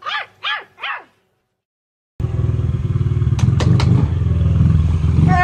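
Three short high barks like a small dog's, then a pause. About two seconds in, a small dirt bike's engine comes in abruptly and runs loud and steady, with three sharp clicks partway through.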